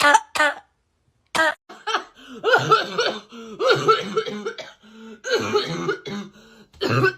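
A person coughing over and over in a string of short bursts, after a pause of about a second.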